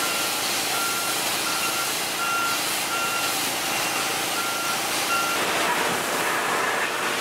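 Vehicle backup alarm beeping at a steady pitch, about three beeps every two seconds, stopping about five seconds in. A steady rushing noise runs underneath and grows louder once the beeping stops.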